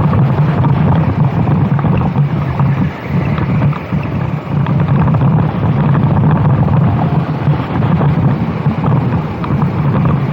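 Racing kart engine running hard on track, with wind buffeting the microphone. The engine note dips briefly a couple of times, about three and four seconds in, as the throttle comes off for corners.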